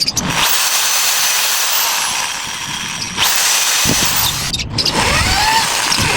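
A handheld power tool, such as a drill or rotary tool, running with a high hissing whir that breaks off briefly about three seconds in.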